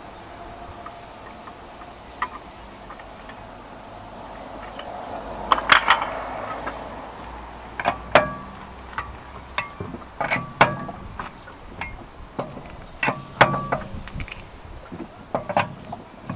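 Steel cross wheel brace clinking against the wheel bolts of a car's rear wheel as it is fitted and turned: a string of sharp metallic clicks and clanks, some with a short ring, starting about five seconds in.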